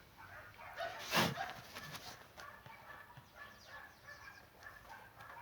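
A dog barks once about a second in, then whines faintly in short high-pitched notes.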